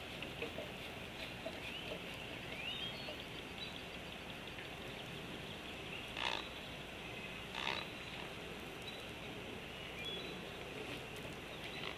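A juvenile animal giving two short, harsh, pig-like grunts about a second and a half apart, a little past the middle, over steady outdoor background noise.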